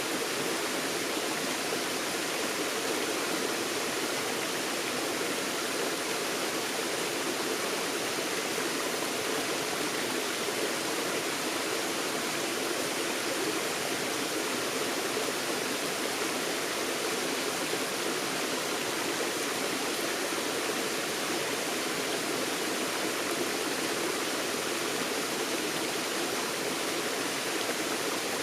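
A forest stream flowing over rocks: a steady, even rush of water.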